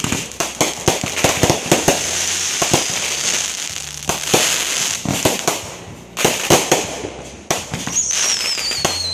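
Fireworks display: a rapid volley of bangs and pops from aerial shells bursting, with crackling stars hissing between them. Near the end comes a whistle falling in pitch.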